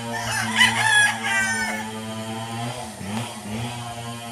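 Rooster crowing once, a pitched call lasting about a second and a half, over a steady background hum.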